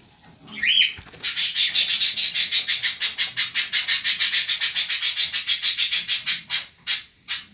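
A bird chirping rapidly and shrilly, about ten chirps a second, starting about a second in after a single rising-and-falling call and breaking up into scattered chirps near the end.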